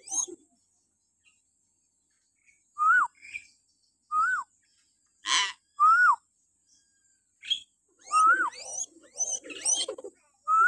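Hill myna giving shrill whistled calls, each rising and then dropping sharply, spaced a second or more apart. There is a harsh screech about five seconds in and a quick run of whistles and squawks near the end.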